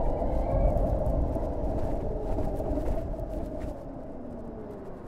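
Harley-Davidson LiveWire electric motorcycle's motor whining while riding, over a low rumble. The whine sinks slightly in pitch and grows quieter over the last couple of seconds as the bike eases off.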